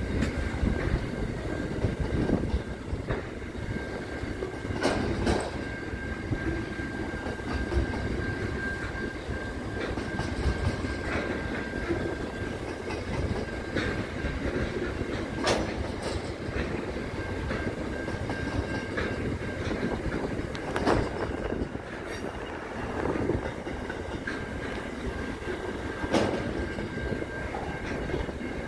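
Double-stacked container freight wagons rolling past, with a steady noise of wheels on rail. Sharp clicks come every few seconds as wheels cross rail joints, and a thin high squeal of wheels on rail holds for long stretches.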